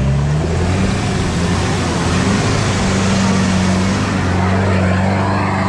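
Toyota Land Cruiser Prado 4WD engine running steadily under load as it crawls up a steep, loose dirt climb, its pitch stepping up slightly just after the start. Tyres grind over dirt and rock underneath.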